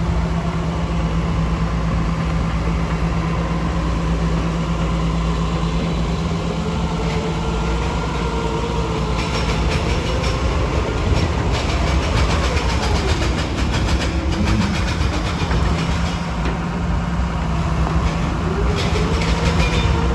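Heavy quarry machinery running with a steady low drone and a shifting engine note. A dense rattling clatter comes in about halfway through and carries on.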